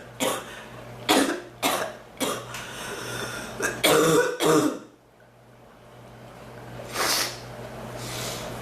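A woman coughing repeatedly: single coughs, then a quick run of several coughs, a pause of about two seconds, and one more cough with a fainter one near the end.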